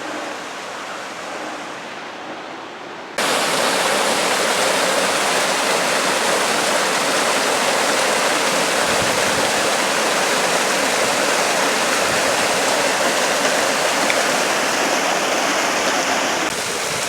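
Steady rush of a waterfall, an even roar of falling water that jumps suddenly louder about three seconds in and then holds level.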